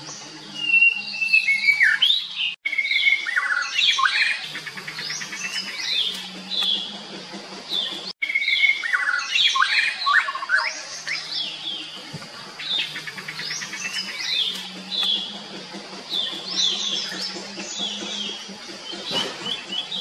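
Several birds calling together in a dense run of short chirps and whistles that mostly slide downward in pitch, over a low steady hum. The sound cuts out for an instant twice.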